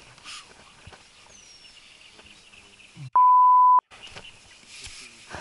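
A single steady 1 kHz beep lasting under a second, about three seconds in, with all other sound cut out just around it: an edited-in censor bleep over a word. Around it, faint outdoor background with a few small knocks.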